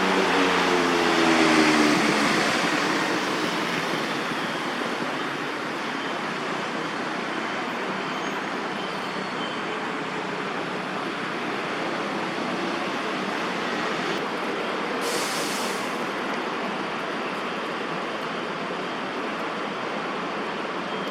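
Steady hum of city traffic. In the first two seconds a louder passing vehicle adds a pitched tone that fades out.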